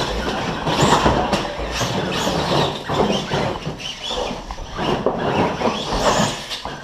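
Side-by-side UTV accelerating hard off the start, its engine revving under load with the machine rattling and knocking over rough ground.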